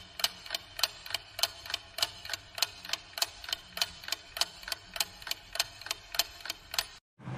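Clock ticking: a steady run of sharp, even ticks, about three a second, that cuts off suddenly near the end.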